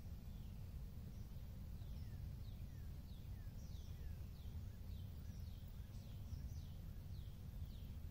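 A bird chirping in a quick series of short, falling notes, about two or three a second, over a steady low rumble.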